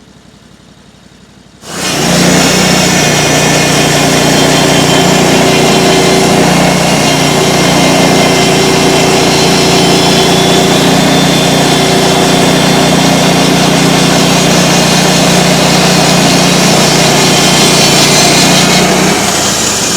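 Band sawmill running loudly and steadily, its engine and blade at full speed. It cuts in suddenly near two seconds in and dies away about a second before the end.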